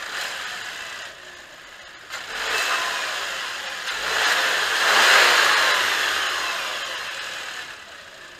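2013 Hyundai Santa Fe Sport's 2.0-litre turbocharged inline-four being revved in neutral, heard from the open engine bay. A short blip comes at the start, then a rev about two seconds in, then a higher one peaking about five seconds in. The engine speed sinks back to a steady idle near the end.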